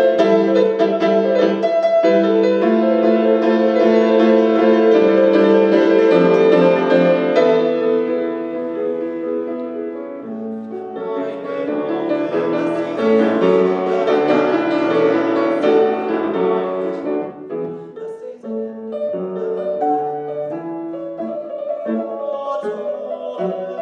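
Solo grand piano playing a full, chordal piece, loud for the first several seconds, softening, then swelling again midway before settling quieter toward the end.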